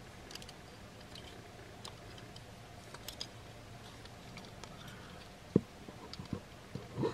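Small clicks and taps of a hard plastic transforming robot figure's parts being swiveled and unpegged by hand, with one sharper snap about five and a half seconds in and a few more just after. A faint steady hum runs underneath.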